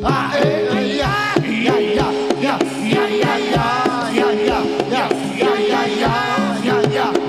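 Live Javanese reog-style dance music from a drum and gamelan ensemble. Regular drum strokes and steady held low tones run under a wavering high melody.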